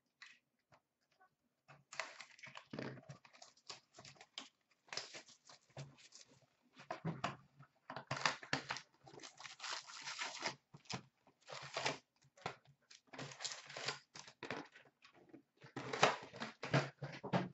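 Plastic shrink-wrap crinkling and tearing as a sealed trading card box is unwrapped and opened, followed by card packs rustling as they are pulled out and stacked. The crinkling comes in irregular bursts starting about two seconds in.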